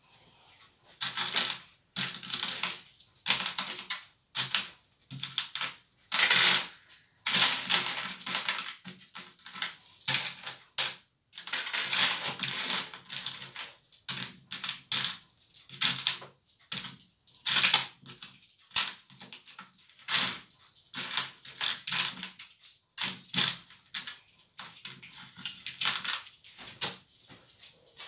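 Loose coins clinking and rattling as they are sorted and counted by hand, stirred in a plastic bowl and laid on a wooden table: quick runs of sharp clicks broken by short pauses.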